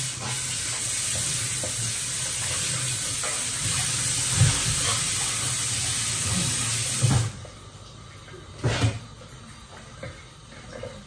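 Kitchen tap running in a steady rush for about seven seconds, then shut off abruptly. A short knock follows about a second and a half later.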